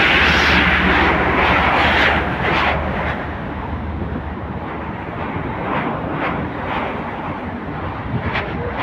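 Heavy rain pouring down steadily, with a continuous hiss that is louder for the first few seconds and then settles. A low steady hum runs underneath.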